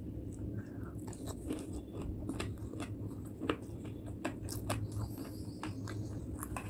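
Close-miked chewing and wet mouth sounds of a person eating curry and rice by hand: irregular sharp smacks and clicks over a steady low hum.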